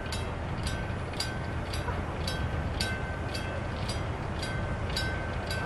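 Lift bridge warning bells ringing steadily, about two strikes a second, with a locomotive-style bell tone, over a low steady hum.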